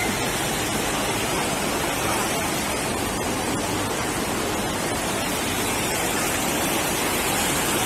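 Fast floodwater rushing and churning down a street, a steady, even rush of water.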